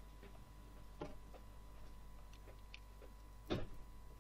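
A few quiet small clicks and taps of a screwdriver and screw against the plastic top of a Toshiba Satellite L650 laptop, as the keyboard's retaining screws are put back in. The loudest click comes about three and a half seconds in.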